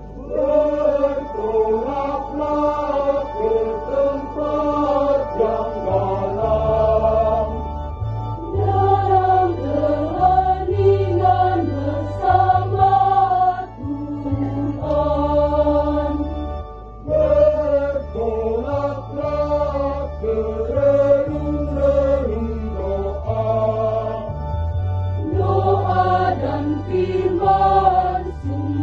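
Mixed choir singing a hymn in parts, accompanied by an electronic organ holding low bass notes that change every second or two.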